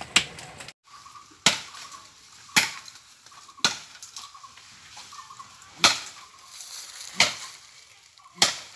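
Chopping blows of a blade into a tree's wood: about seven sharp strikes, spaced a second or so apart with a longer gap in the middle.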